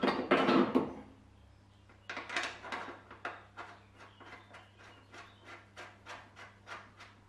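Aluminium front cross member being fitted to the underside of a Saab 900: a clatter of metal being handled and pressed into place, then after a short pause a run of light, evenly spaced clicks, about three or four a second, as its fasteners are worked in. A faint steady hum lies beneath.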